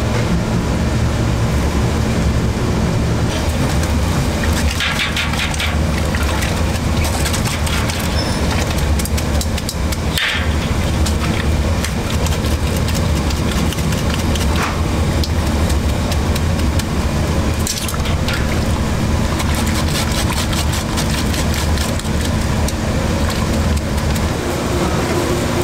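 Steady low kitchen rumble, with a few short clinks and splashes as metal mesh strainers of rice are dipped into and lifted from a stainless pot of pork broth.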